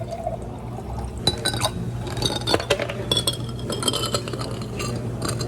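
Ice and glassware clinking as a drink is made: a quick run of sharp clinks, several with a short bright ring, starting about a second in.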